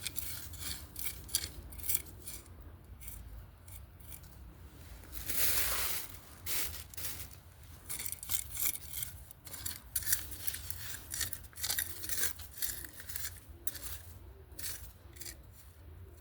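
Hand tool scooping and scraping through flowerbed soil: a run of short scraping strokes, with one longer, louder scrape about five seconds in.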